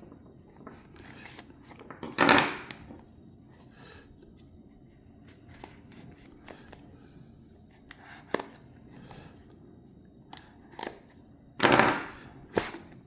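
A package being opened by hand: scattered small clicks and handling noises of packaging, with a louder rustling or tearing burst about two seconds in and two more near the end.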